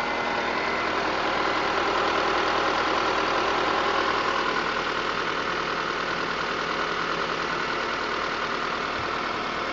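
Honda CR-V's K20A4 2.0-litre four-cylinder petrol engine running steadily, with a ticking noise in it that the owner is unsure is normal.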